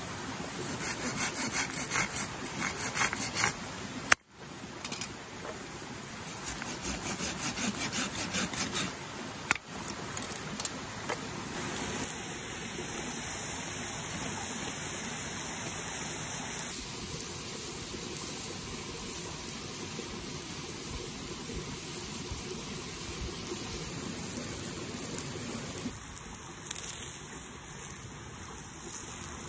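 A hand pruning saw with a curved blade cuts through a wooden branch in quick back-and-forth strokes, in two bouts of a few seconds each near the start. After that there is only a steady hiss.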